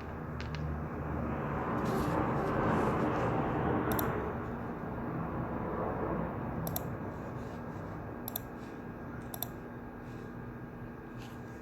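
Quiet study-room ambience: a steady hum of ventilation and electrics, a swell of rustling over the first few seconds, and a handful of small sharp clicks and taps scattered through it, like pens, keys or a mouse at the desks.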